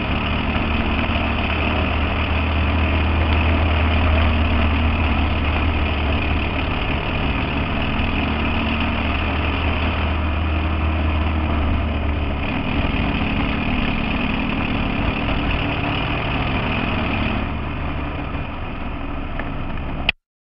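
American Super Cup stock car heard from on board, engine running steadily on the track with road noise. A deep low drone drops away about twelve seconds in, and the sound cuts off suddenly near the end.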